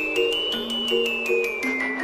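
Background music: a bright mallet-percussion melody stepping up and down over a repeating low note pattern, at a steady beat.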